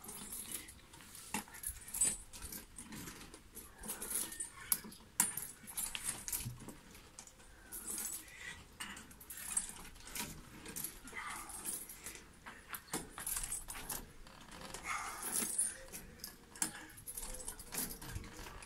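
Metal chains of a tire swing jangling and clicking as it swings back and forth, with a short squeak returning every few seconds with the swing.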